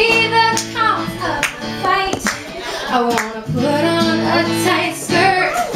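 A woman singing live over a strummed acoustic guitar.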